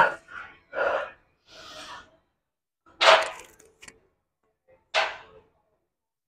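A man's hard, forceful exhalations in short bursts about every one to two seconds, starting with a brief grunt: straining breaths through the reps of a weightlifting set.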